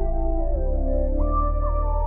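Background music: soft ambient keyboard with slow, held notes.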